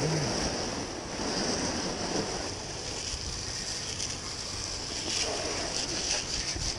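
Water from a garden hose spray nozzle spraying steadily against the aluminum hull of a boat on its trailer.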